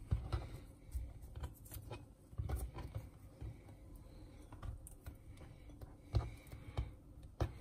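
Irregular light clicks and knocks, with a few dull low thumps, as kitchen items are handled on a work surface.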